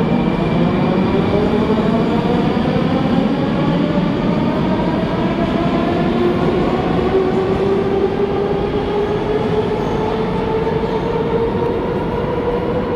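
Moscow metro train accelerating, its traction motors whining in a slow, steady rise in pitch over a loud rumble of running noise.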